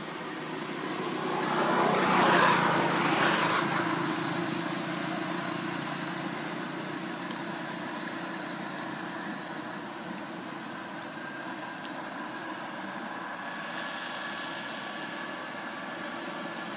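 A road vehicle passes by, growing louder to a peak about two to three seconds in and then slowly fading, over a steady background hum.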